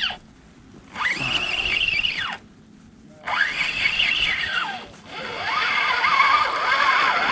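Spinning reel being cranked fast in three spells, its gear whine rising, holding and falling in pitch with each spell of winding, as line is wound in after a bite.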